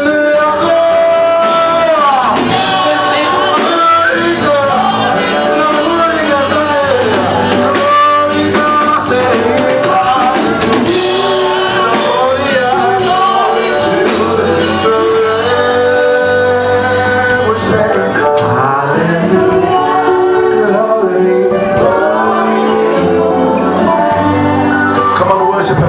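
Live gospel worship music: singing over a band, loud and continuous, with no clear words.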